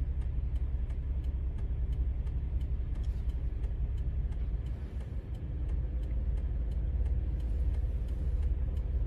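Car engine idling with a steady low rumble, heard from inside the cabin, with a faint, even ticking above it.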